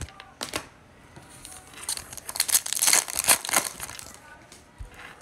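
A trading-card pack wrapper being torn open, crinkling and ripping for about two seconds in the middle, after a couple of light clicks near the start.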